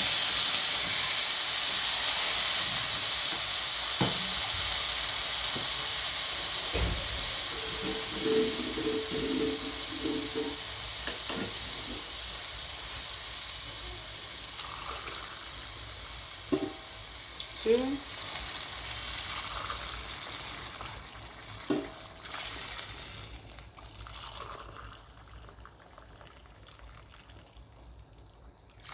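Beef stock and hot water poured into a hot pot of rice frying with masala, hissing and sizzling loudly at first and dying away gradually as the liquid settles, with a few light knocks of utensils on the pot.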